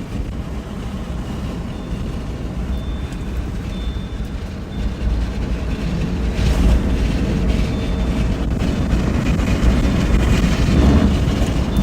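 A loud, steady low rumble of wind and vehicle noise, growing louder about five seconds in.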